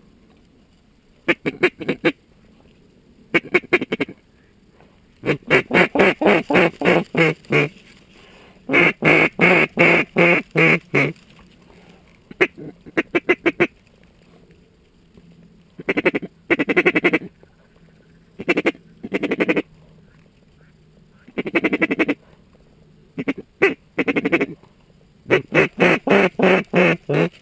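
Mallard-style duck quacking: rapid runs of loud quacks, several a second, repeated about ten times with short pauses between runs.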